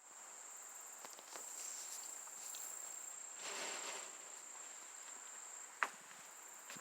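Insects trilling steadily outdoors, a continuous high-pitched buzz. A brief rustling swell comes about three and a half seconds in, and a single sharp click just before the end.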